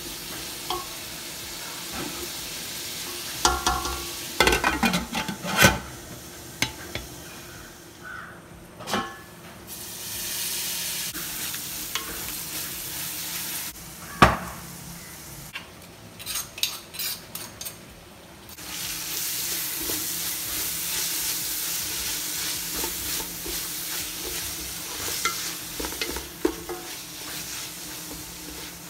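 Sliced onions sizzling in oil in an aluminium pot, stirred with a wooden spatula that knocks and scrapes against the metal. About halfway through, a stone mortar and pestle crushes ginger and garlic with a string of sharp knocks. In the last third a steady sizzle of onions frying in a pan returns.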